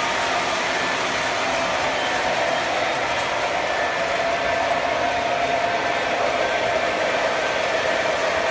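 Model trains running on the layout's track: a steady whir of electric locomotive motors and wheels rolling on rails, with a faint whine that holds steady and grows a little stronger about halfway through.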